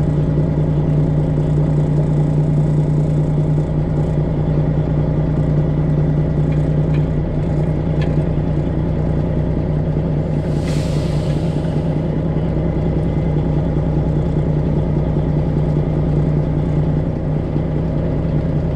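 Semi truck's diesel engine running steadily at low speed while maneuvering, with a brief hiss about ten seconds in.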